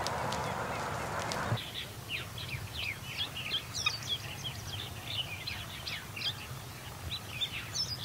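A brush fire burning with a steady rushing hiss, cut off suddenly about a second and a half in. Then a busy chorus of small birds chirping, with many quick high chirps every second.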